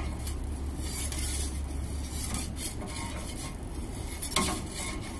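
Steady hiss and rush of the Ooni Koda 16's gas burner, with a few short scrapes of a metal turning peel against the baking stone as the pizza is turned, the clearest about four seconds in.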